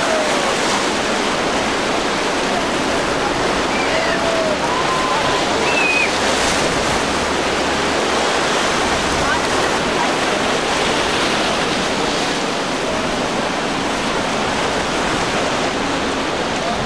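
Steady rush of breaking waves and churning boat wake in rough water, with faint voices in the background.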